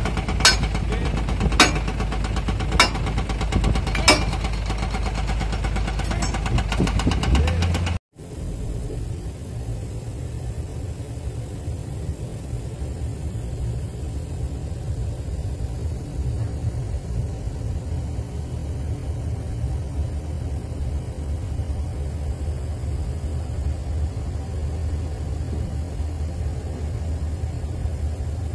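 A diesel engine running, with sharp knocks about a second apart over it for the first few seconds. It cuts off suddenly about eight seconds in, and a Komatsu GD555 motor grader's diesel engine then runs steadily.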